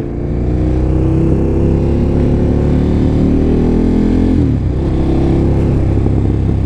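KTM naked motorcycle's engine pulling in gear, its pitch rising slowly as the bike gathers speed. A little over four seconds in, the pitch drops sharply with an upshift and then starts climbing again. Heard through the rider's helmet microphone.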